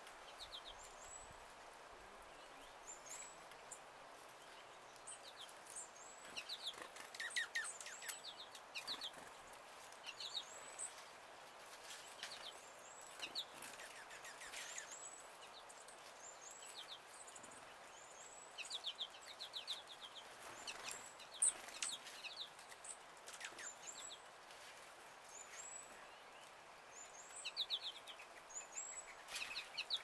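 Small songbirds calling: short, high chips repeat every second or two, mixed with quick runs of several lower notes.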